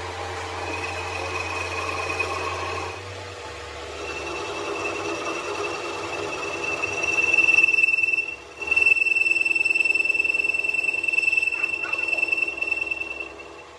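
Workshop machine running with a steady high-pitched whine over a lower steady hum. The whine breaks off for a moment about halfway through, then comes back louder before easing near the end.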